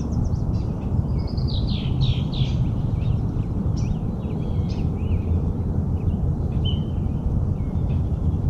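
Several songbirds singing, a run of quick falling chirps and warbling phrases that is busiest in the first few seconds, over a steady low rumble.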